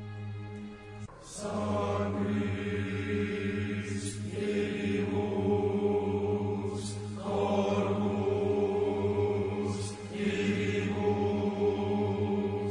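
Background music: chanting voices sing long phrases, a new one beginning about every three seconds, over a steady low drone.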